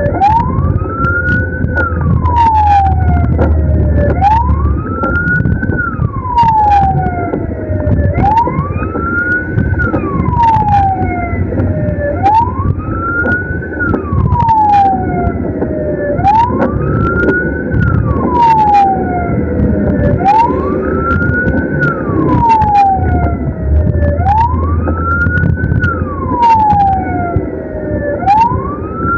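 Ambulance siren on a wail setting, each cycle rising quickly and then falling slowly, repeating about every four seconds, over the low rumble of the vehicle's engine and road noise, with sharp clicks now and then.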